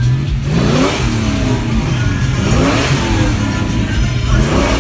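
Car engine revved three times from idle, each rev a quick rise in pitch that falls back to a steady idle, about every two seconds.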